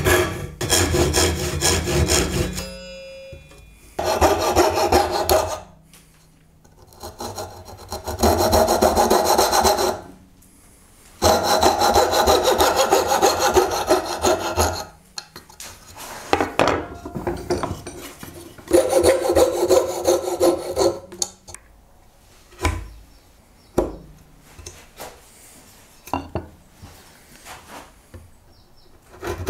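Fine-toothed handsaw cutting a dovetail into a softwood board, in runs of quick back-and-forth strokes lasting a few seconds each, with pauses between. In the last several seconds there are only short, scattered strokes.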